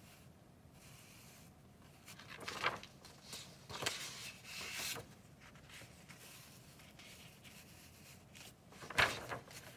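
Sheets of drawing paper rustling as they are handled and shifted, in a few short rustles around the middle and a sharper, louder rustle near the end.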